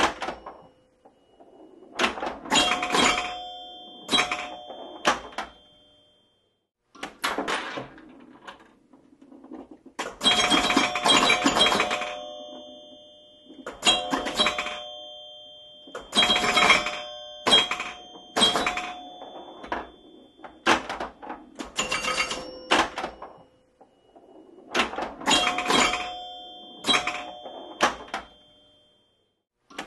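Pinball machine in play: bursts of rapid sharp clacks and knocks mixed with ringing bell tones. Each burst lasts a second or two, with short pauses between.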